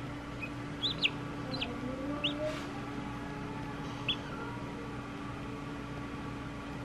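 Chick peeping from inside a pipped egg during hatching: about five short, high peeps in the first four seconds, then none. A steady low hum runs underneath.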